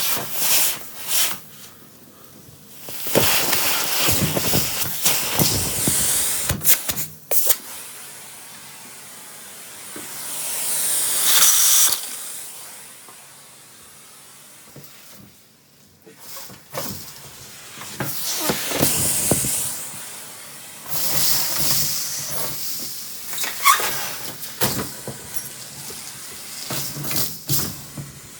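A central vacuum hose sucking up a floor mess: a rushing hiss of air that swells and drops as the hose takes in debris, with scattered sharp clicks and rattles.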